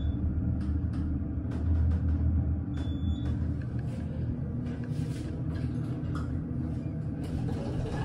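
Elevator car descending: a steady low rumble of the moving cab, with one short high beep about three seconds in as it passes a floor. Near the end a hiss comes in as the car arrives and the doors slide open.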